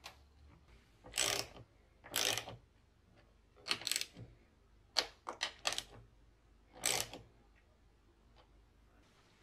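Small ratchet wrench clicking in short bursts with pauses between, as it drives a bolt on the mower engine's air filter housing.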